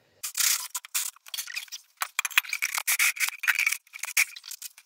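Corded electric drill's twist bit opening out holes in thin sheet steel, a stop-start scraping as it bites and cuts, with a high squeal from the bit setting in about two seconds in.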